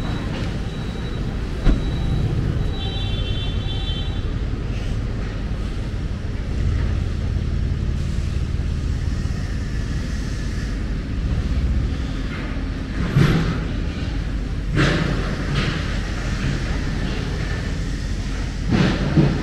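City street traffic: a steady low rumble of passing cars. A short high-pitched sound comes about three seconds in, and a few brief louder noises come in the second half.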